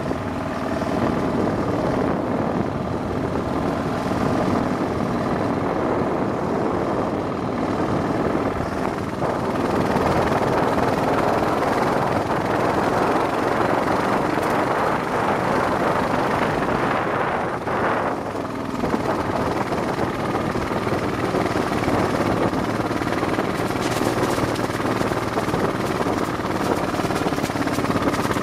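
Kawasaki KLR motorcycle's single-cylinder engine running steadily while riding along, with road and wind noise mixed in.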